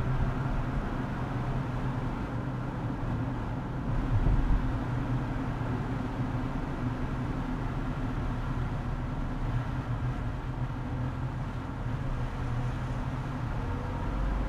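Steady road and engine rumble of a car driving on a highway, heard from inside the cabin, with a brief louder swell about four seconds in.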